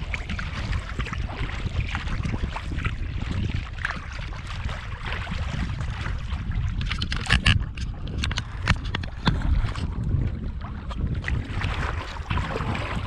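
Wind rumbling on the microphone of a kayak under paddle, with water lapping and splashing at the hull. A cluster of sharper splashes or knocks comes about seven to nine seconds in.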